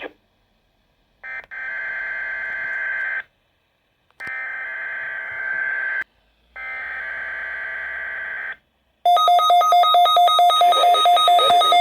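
Three bursts of SAME digital header data, each about two seconds of harsh electronic buzzing, played through a weather radio's small speaker. About nine seconds in, a louder pulsed electronic alarm starts, beeping about four times a second: the tone alarm of the weekly weather radio test.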